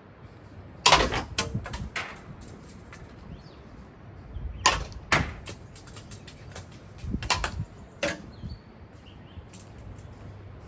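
Hard junk objects knocking and clattering against hard surfaces: a series of sharp impacts in groups about a second in, around five seconds, and around seven to eight seconds, with a last knock near the end.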